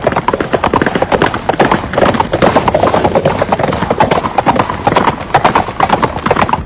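Galloping horse hoofbeats, a rapid continuous drumming that stops abruptly at the end.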